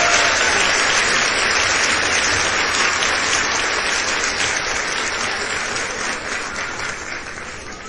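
Crowd applause, many hands clapping in a dense patter, fading out steadily.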